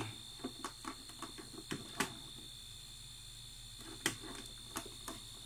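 A few light, scattered clicks from handling and pressing the buttons of a plug-in power meter, over a steady high-pitched electronic whine and a faint low hum.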